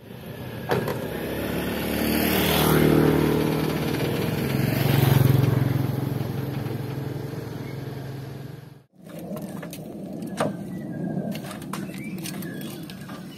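Mitsubishi dump truck's diesel engine revving hard under load, rising about two seconds in and peaking twice, as the truck tries to pull its rear wheels out of a collapsed culvert. It cuts off abruptly near the end, leaving scattered clicks and knocks.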